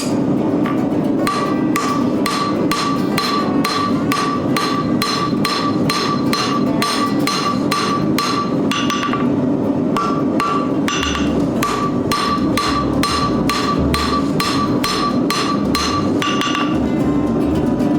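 Blacksmith's hammer striking hot steel on an anvil, about three blows a second, each blow ringing, while drawing out the stock for a forged hinge. The blows pause briefly about nine seconds in and again near the end, over a steady rushing noise.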